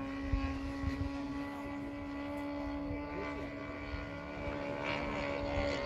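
Moki 30cc engine of a 2-metre RC Chipmunk model plane running at a steady throttle, its propeller drone holding one pitch, with irregular low thumps underneath.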